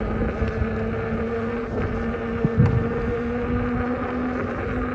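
Veteran Sherman electric unicycle's road noise while riding on a paved surface: a loud, steady tyre drone with a low hum in it, and a couple of bumps about halfway.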